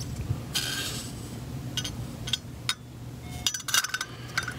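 Small metal clicks and clinks as a projector lamp's glass reflector is fitted into its sheet-metal bracket and slid under the bracket's clips, with a brief scraping rustle about half a second in and a cluster of clicks near the end. A low steady hum runs underneath.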